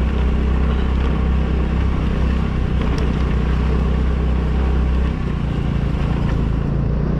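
Honda scooter's small engine running as it rides over a rough dirt and gravel track, with steady road noise; the deep rumble eases off about five seconds in.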